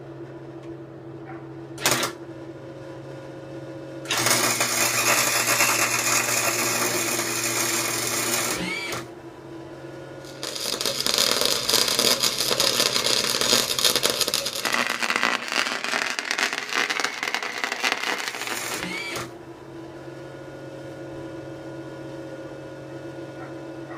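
Arc welding on galvanized steel: a brief strike of the arc about two seconds in, then two runs of crackling arc, about four and about nine seconds long. A steady hum sounds underneath throughout.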